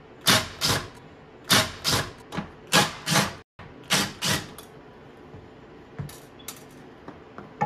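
Cordless impact driver backing out the screws of a UPS battery-pack cover: about nine short bursts of rapid hammering, mostly in pairs, in the first half, then a few lighter metallic clicks.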